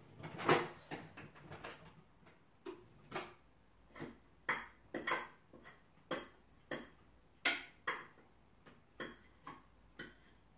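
Dishes and utensils clinking and knocking, with short sharp sounds at an uneven pace of about one or two a second. The loudest comes about half a second in.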